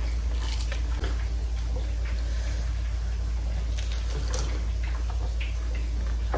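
Someone eating, with scattered wet clicks and smacks of chewing, over a steady low electrical hum.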